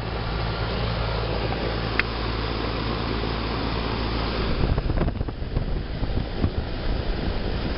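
Carrier straight-cool central air conditioner condensing unit running: a steady hum from its fan and compressor. From a little past the middle, wind buffets the microphone in irregular gusts.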